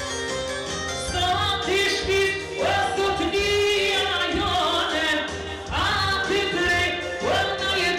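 A man singing into a microphone over instrumental accompaniment, his voice entering about a second and a half in with wavering, ornamented phrases.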